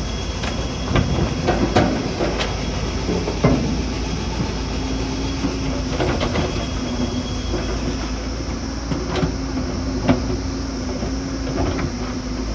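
Heavy earthmoving machine running steadily, with irregular sharp metallic clanks and knocks scattered through, about eight of them.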